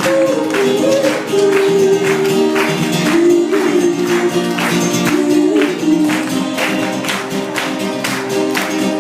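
Live pop band playing an instrumental passage between sung sections, with a steady beat and a sustained, wavering melody line.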